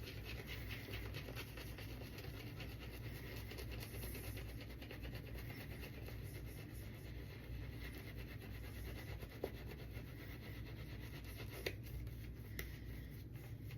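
Shaving brush swirling and whipping lather, a faint, steady wet scratching as the lather is worked up with added water, with a few small clicks in the second half.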